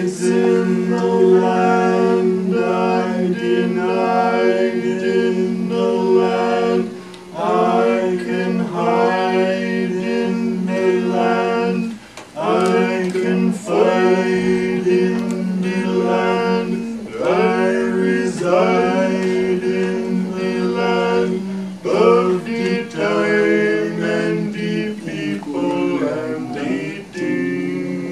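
A band playing live, with a voice singing long held, sliding phrases over a steady low sustained chord. The sound briefly dips twice, between phrases.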